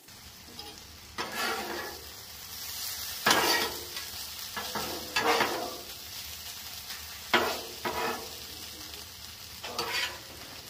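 Ground meat sizzling on a hot steel flat-top griddle, with a metal spatula scraping across the griddle top several times as it pushes and turns the meat.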